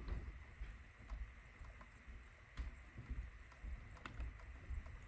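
Faint handling noise: soft, irregular bumps and a few light clicks as the Akai GX-F91 cassette deck's door-mechanism gears and levers are worked by hand.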